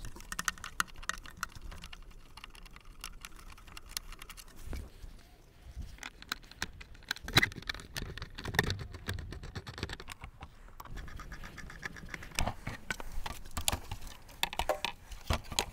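Screwdriver turning out the screws of a motorcycle's plastic headlight cowl: irregular small clicks and scrapes of metal on screw heads and plastic, with the loosened plastic panel rattling as it is handled near the end.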